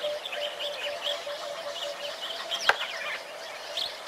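Several wild birds chirping and calling, quick high chirps over a lower note that repeats steadily throughout. A single sharp click cuts through about two-thirds of the way in.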